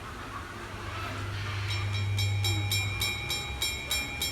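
A small bell struck over and over by a trained bird, about four clear rings a second, roughly ten in all, starting a little after a second in. The bird is counting out its answer to a sum (seven plus four) by the number of rings. A low steady hum runs underneath for the first few seconds.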